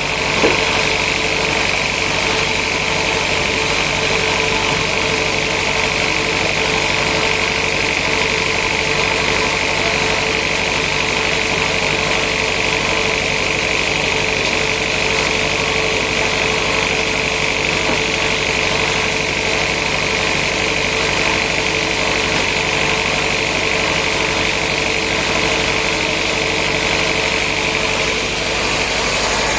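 Sawmill saw and machinery running steadily, with a steady high-pitched tone over the machine noise and a sharp knock about half a second in. The tone stops shortly before the end.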